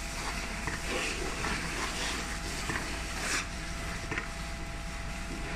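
Water from a fire hose hitting a burning car, a steady rushing hiss that starts just before and holds throughout, with a faint steady hum underneath.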